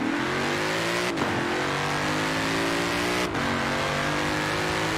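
Car engine accelerating through the gears. Its pitch climbs steadily and drops back at two upshifts, about a second in and again a little past three seconds.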